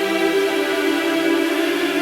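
Background music: sustained electronic synth pads with no beat.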